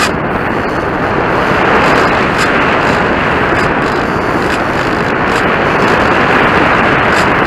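Steady, loud rush of airflow and motor noise picked up by a camera mounted on a model airplane in flight, with no distinct engine pitch standing out.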